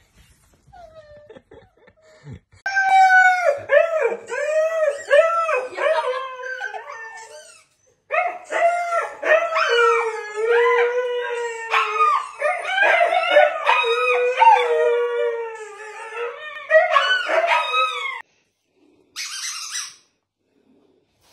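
An Alaskan malamute howling in long, wavering yowls whose pitch slides up and down, in two long stretches with a short break between them.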